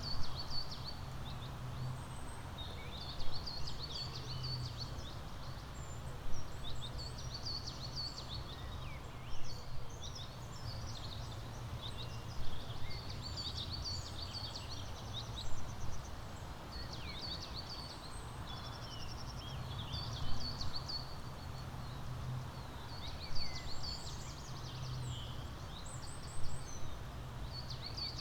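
Songbirds chirping and trilling in short bright phrases that come back about every three seconds, over a steady low background rumble.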